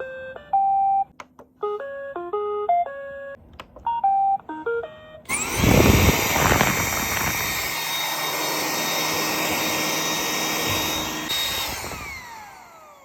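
Roomba 980 robot vacuum playing three short electronic beep melodies, then its cleaning motors spinning up with a rising whine. The motors run steadily for about six seconds and then wind down with a falling pitch near the end.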